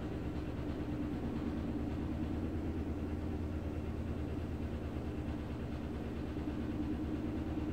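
Steady low mechanical hum with no change, typical of a fan or ventilation unit running.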